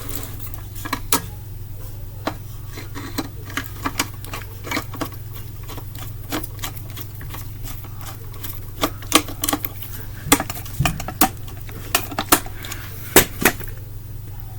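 Irregular clicks and light metallic taps of ceiling-fan blade arms and screws being handled and screwed together, busier in the second half, over a steady low hum.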